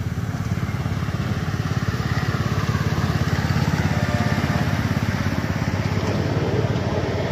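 Small engine of a ride-on miniature diesel-outline locomotive running steadily with a fast, even putter, getting somewhat louder midway as the train passes close.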